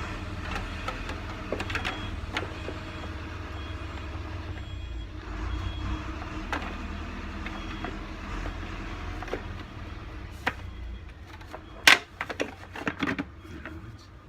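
A delivery truck's engine rumbling steadily, with short reversing beeps repeating about once a second. The rumble fades about eleven seconds in, and a few sharp clicks and knocks follow, one much louder than the rest.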